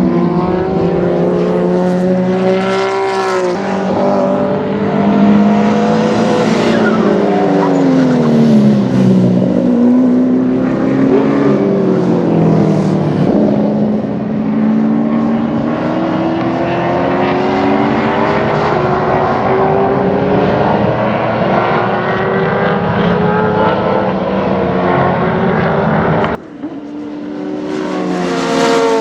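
Historic Group C and Group A touring car engines at racing speed, several at once, their pitch rising and falling as they rev through the gears. The sound breaks off suddenly about 26 seconds in, then another engine revs up.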